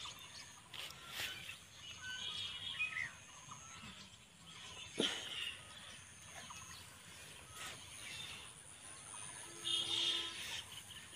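Birds chirping in short bursts of calls, with scattered sharp clicks; the loudest click comes about five seconds in, and a busier run of chirps comes near the end.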